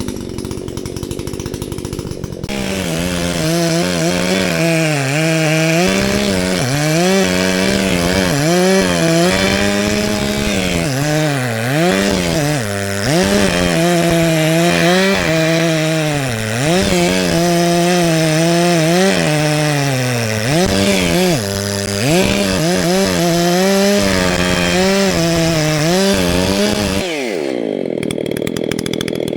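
Echo CS-620PW two-stroke chainsaw idling, then opened up to full throttle about two and a half seconds in and cutting into a large dead tree trunk. Its pitch dips and recovers again and again as the chain bogs under load in the cut. Near the end it drops back to idle.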